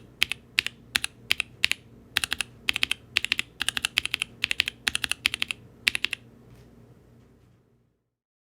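Typing on a Mode Eighty mechanical keyboard with NK Blueberry tactile switches, aluminium plate and GMK keycaps: quick runs of crisp keystrokes in short bursts. The typing stops about six seconds in and the sound fades out near the end.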